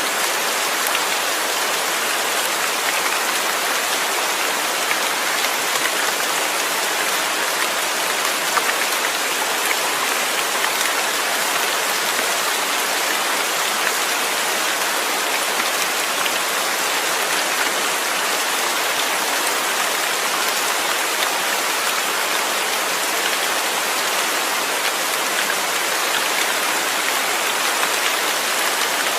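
Steady rain falling and pattering on a surface, a constant even hiss with fine scattered drop ticks.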